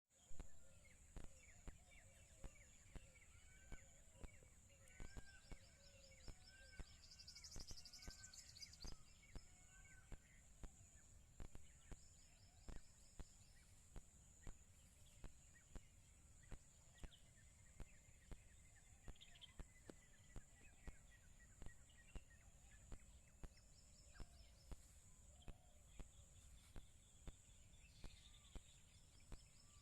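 Faint birds calling, with short repeated arched chirps and twitters, over a steady high hiss. Frequent light clicks run through it.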